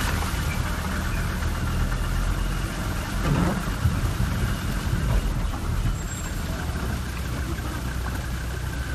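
A vehicle driving on a wet, mud-covered road, heard from inside the cab: a steady engine rumble with road noise.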